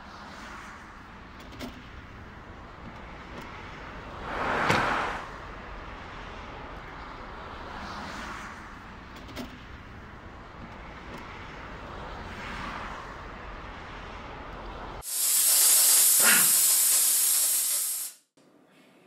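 Steady road noise with vehicles passing several times, then a steam iron gives a loud hiss of steam for about three seconds that cuts off suddenly.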